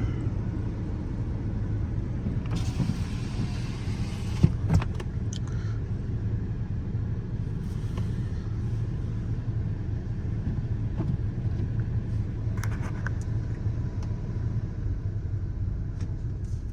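2018 Dodge Durango heard from inside the cabin while driving on snowy roads: a steady low engine and road rumble. A stretch of hiss comes in about two and a half seconds in and stops after a couple of seconds, ending in a sharp knock.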